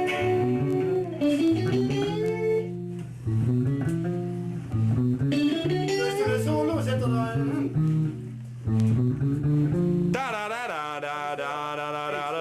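Band rehearsal: electric guitar playing a lead line with bent notes over a bass guitar line, going into a long held note with vibrato about two seconds before the end.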